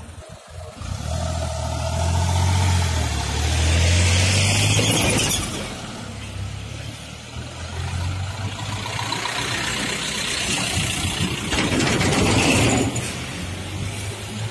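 Motor vehicle engines running on a road: a steady low engine hum, with two louder rushes of road noise, about four seconds in and again near the end.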